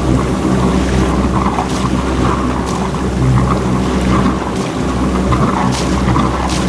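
Small motorboat's engine running steadily while under way, a constant low hum, with wind buffeting the microphone and a few brief splashes or gusts.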